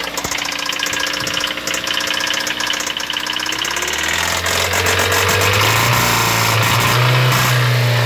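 Gasoline direct-injection (GDI) car engine idling with a fast, steady ticking, which the owner puts down to the direct injection rather than a rod knock. About halfway through a low hum comes in and grows to be the loudest sound.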